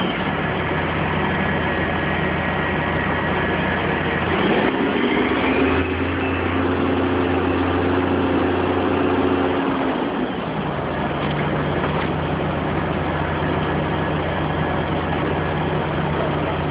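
Crane engine running steadily, speeding up about four seconds in and settling back about ten seconds in as the hanging load is hoisted and swung.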